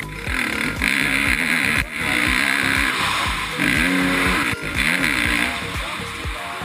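Dirt bike engine revving in bursts as the throttle is opened and shut, over background music with a steady beat.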